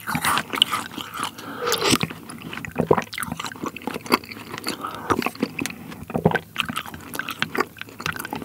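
Close-miked eating of Maltesers from spoonfuls of cold milk: the malted chocolate balls are chewed, with wet mouth sounds and many short sharp clicks and smacks.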